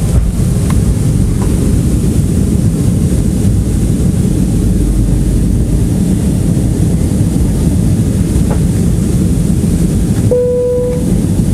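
Airliner cabin noise during descent: the steady low rumble of the engines and airflow past the fuselage, heard from a window seat. Near the end a single steady tone sounds for under a second.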